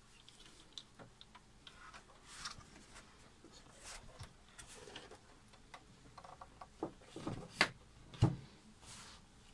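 Scattered light clicks and knocks from handling an amplifier's metal chassis and a screwdriver working the screws of its bottom panel, with a few louder knocks, one of them a dull thump, near the end.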